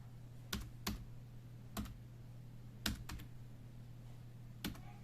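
Keys of a Dell KB216 membrane keyboard pressed one at a time while Shift-combined special keys are tried: about seven separate clicks at uneven gaps, several in quick pairs.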